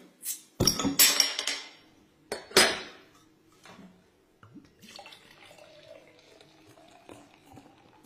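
A glass beer bottle opened with a bottle opener: loud metallic clinks and a hiss of escaping gas in the first three seconds. Then beer is poured from the bottle into a stemmed glass, a faint steady pour.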